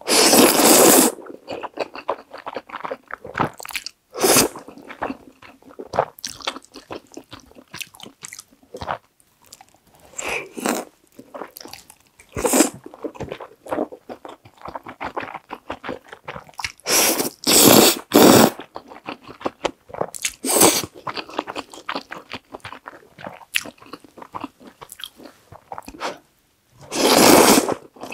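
Close-miked eating of Samyang Carbo Buldak stir-fried instant noodles: several long, loud slurps of the thick, creamy noodles, with wet chewing between them.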